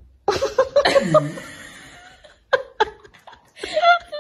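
A person laughing in short bursts.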